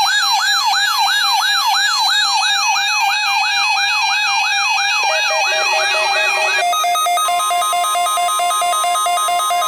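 Weather radio receiver's electronic alert alarm: a siren-like tone sweeping upward and dropping back about three times a second over steady beeping tones, then switching about seven seconds in to a pulsing pattern of steady electronic tones.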